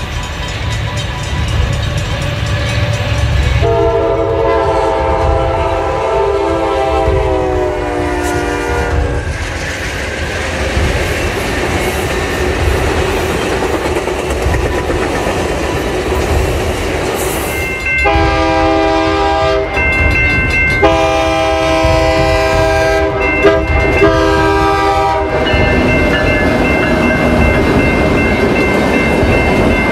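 Train running with a steady low rumble and wheel clatter on the rails, sounding its horn. There is one long blast about four seconds in that sags slightly in pitch, then three shorter blasts later on, and a higher steady tone near the end.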